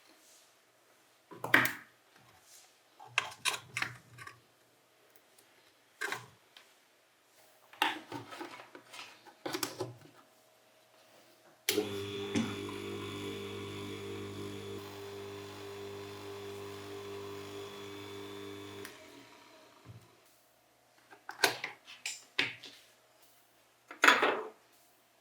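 Metal parts knocked and clattered a few times during assembly work, then a small electric motor running steadily for about seven seconds with a low hum, starting suddenly and fading out as it runs down.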